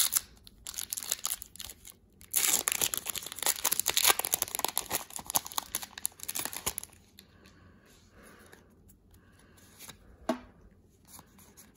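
Foil booster-pack wrapper being torn open and crinkled by hand, a dense crackling, loudest over the first seven seconds or so, then falling to quieter rustling.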